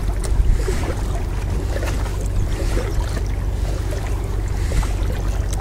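Wind buffeting the microphone with a steady low rumble, over light water splashing and dripping around a kayak paddle.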